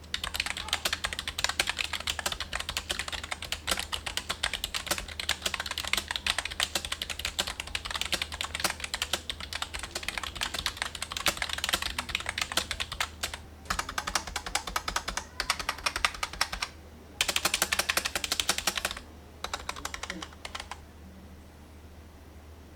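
Typing on a Rexus K68M 65% membrane keyboard: a fast, continuous stream of keystroke clacks with a few short pauses, stopping about two seconds before the end.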